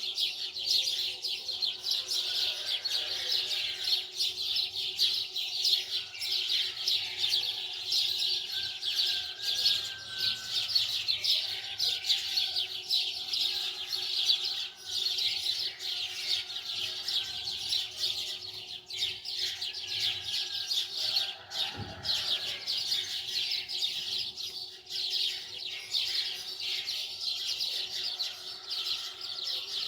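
Many small birds chirping and twittering continuously in a dense, overlapping chorus, with a faint steady hum underneath.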